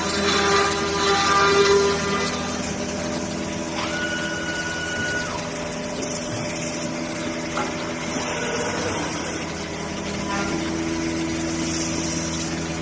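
Woodmaster PRO-MASTER-T4X4 5-axis CNC router running with a steady machine hum. A whine rises about four seconds in, holds for about a second, then falls away, and a weaker rising whine follows a few seconds later.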